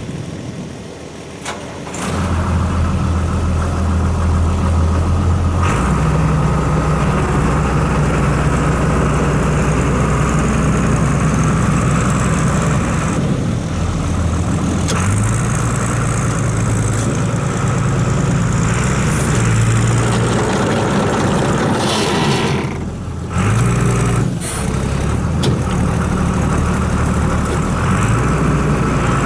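Diesel engine of an Orchard Rite Bullet orchard shaker, a John Deere, starting about two seconds in and then running steadily, its pitch stepping up and down several times.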